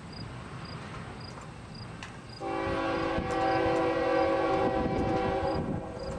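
Air horn of an approaching CN freight locomotive sounding one long blast of about three seconds, a steady multi-note chord that starts about two and a half seconds in and cuts off near the end. Crickets chirp steadily underneath.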